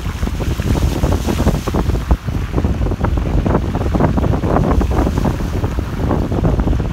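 Wind buffeting a phone's microphone in a steady rumble, with floodwater sloshing and lapping underneath.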